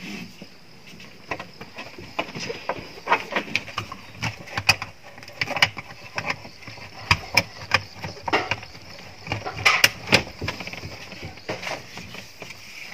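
Car seat belt webbing pulled and rubbed across a painted board, with irregular clicks and knocks as the belts are handled and fastened into their buckles.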